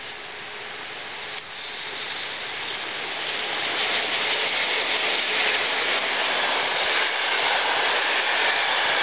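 PKP class EP07 electric locomotive hauling passenger coaches past on the track: a rushing rumble of wheels on rail that grows louder over the first few seconds and stays loud as the coaches go by.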